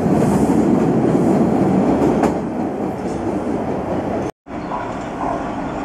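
Boston Orange Line subway train, a Hawker Siddeley 01200-series car set, pulling out of an underground station. The rail noise is loud at first and eases after about two seconds. About four and a half seconds in the sound drops out for a moment at an edit, then a quieter train rumble follows.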